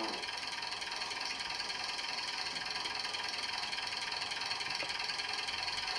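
Sound decoder in a model diesel railcar playing a recorded Leyland diesel engine idling through the model's small speaker, a steady, thin, trebly running sound.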